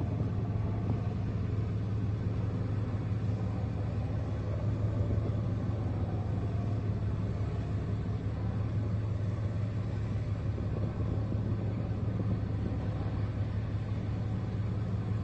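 Boat engine running steadily at sea, a constant low rumble with an even hum.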